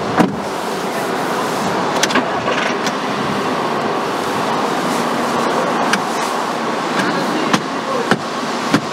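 2008 Volkswagen Passat 1.8 TSI running, a steady car noise with a few sharp clicks scattered through it.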